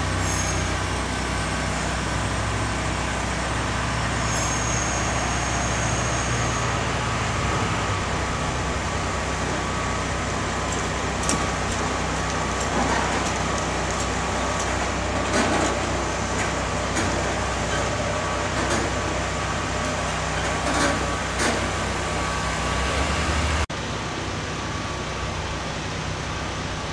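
Steady low engine rumble with street traffic noise. The rumble cuts off abruptly near the end, leaving a quieter traffic hum.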